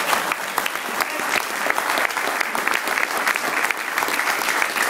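A roomful of people applauding: dense, steady clapping of many hands.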